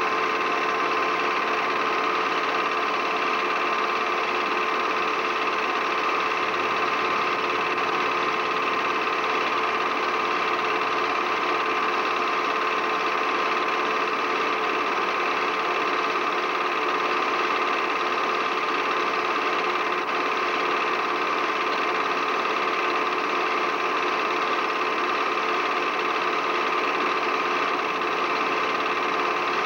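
Film projector running steadily, its motor and film mechanism making an even, unchanging whirr and clatter.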